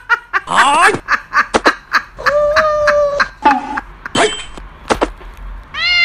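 People talking and laughing, with bursts of snickering laughter.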